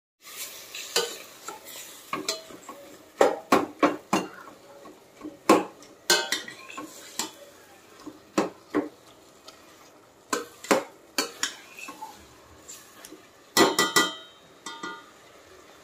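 Metal spoon stirring and scraping shallots, onions and tomatoes frying in a stainless steel pot, clanking against the pot in irregular clusters of strikes over a faint sizzle of the sauté.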